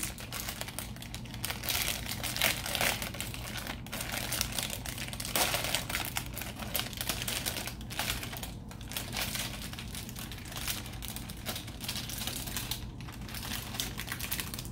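Plastic wrapper of ready-to-bake chocolate chip cookie dough crinkling and crackling in irregular bursts as it is handled and pulled at to get it open.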